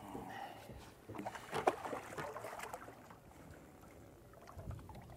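Several light knocks on a small fishing boat in the first two seconds, then a quiet hiss with one soft low thump near the end.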